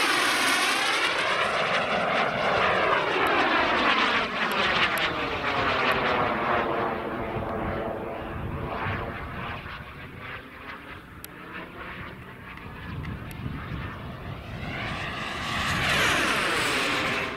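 Turbine-powered CARF Ultra Flash RC sports jet with a KingTech 140 turbine flying fast passes. The loud jet whine fades away through the middle, builds again as a second pass comes in near the end, then cuts off suddenly.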